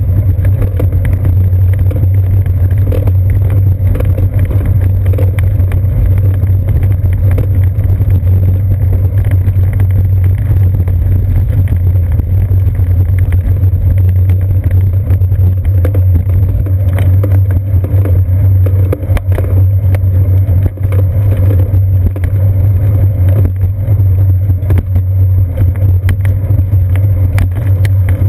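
Bicycle rolling over brick pavers, picked up through a seat-post-mounted camera as a loud, steady low rumble with constant rapid rattling clicks.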